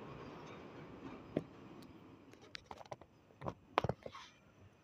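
Tram rolling away along the rails, its running noise fading, with a few sharp clicks and knocks over the last couple of seconds.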